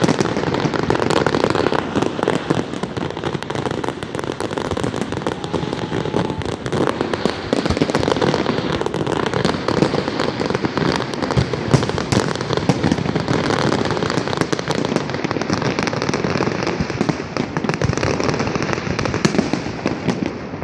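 Fireworks going off in a dense, continuous crackle of many rapid small pops and bangs.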